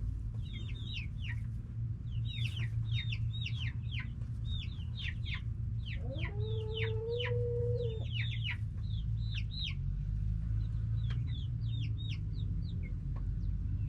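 Backyard chickens calling: a steady run of short, high, falling chirps, with one drawn-out call about six seconds in that lasts about two seconds.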